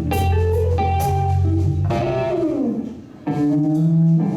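Live blues band playing, led by electric guitar over a bass line. About two and a half seconds in, a note glides downward and the sound briefly drops before the band comes back in.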